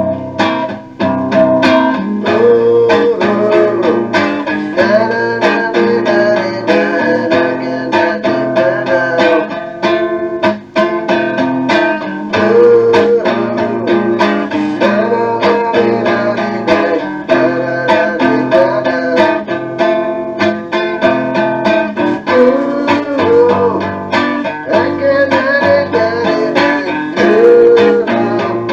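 Guitar-led song played back from a cassette tape, with plucked guitar notes throughout.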